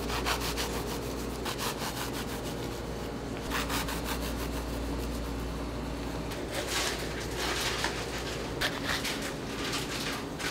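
Several short bursts of quick scraping strokes, each burst lasting about a second, over the steady low hum of running kitchen machinery.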